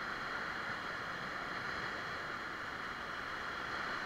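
Whitewater rapids rushing steadily around a paddle raft.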